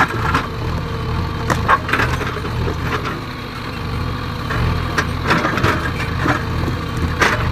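Diesel engine of a JCB 3DX backhoe loader running steadily, with irregular knocks and clatter of stone being loaded.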